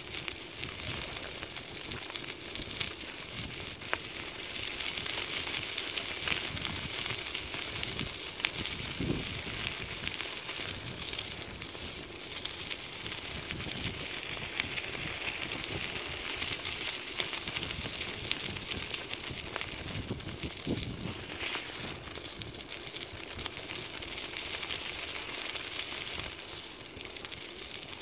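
Dog scooter's wheels rolling over a gravel track: a steady crackling hiss with many small ticks from the stones, and occasional low bumps.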